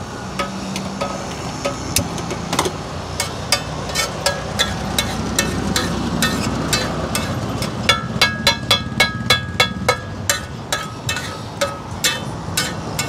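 Metal spatula clanking and scraping on a large flat griddle (tawa) as chopped vada pav pieces are tossed and fried. About eight seconds in comes a quick run of ringing strikes, about five a second.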